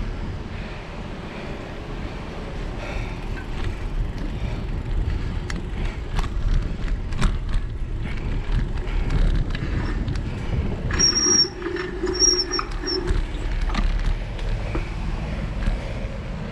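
Wind buffeting the mic of a GoPro on a moving bicycle, with road rumble from the tyres and a few small clicks and rattles from the bike over bumps. About eleven seconds in, two brief high-pitched squeals.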